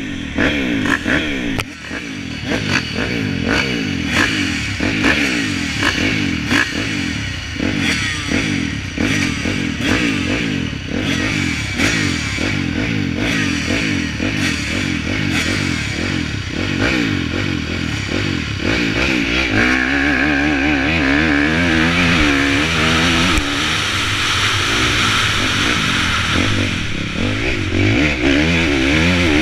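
Motocross bikes' engines revving on the start line, throttles blipped over and over. About twenty seconds in the race starts and the nearest bike pulls away hard, its engine note rising and falling as it goes through the gears.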